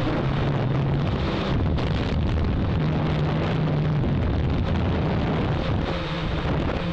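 Hexacopter's electric motors and propellers droning steadily, a low hum that shifts slightly in pitch as the motors adjust, with wind rushing over the onboard microphone.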